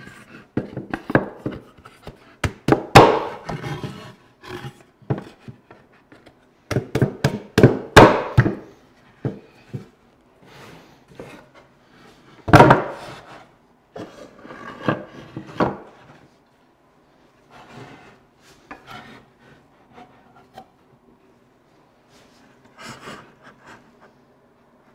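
Wooden bench parts fitted together by hand in a dry assembly: notched stretchers slid into the slotted legs and the seat board set on, with repeated sharp wood-on-wood knocks and clunks and some rubbing. The loudest knock comes about halfway through, and the handling grows fainter near the end.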